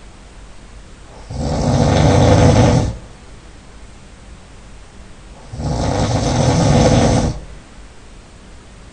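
A man snoring loudly: two long rattling snores, each about a second and a half, about four seconds apart, with quieter breathing between them.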